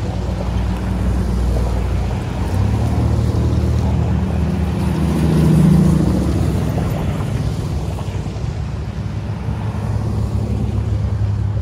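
SUVs and pickup trucks driving in a line around a damp dirt race track to pack the surface, their engines and tyres running steadily. The sound swells as one vehicle passes close about five to six seconds in.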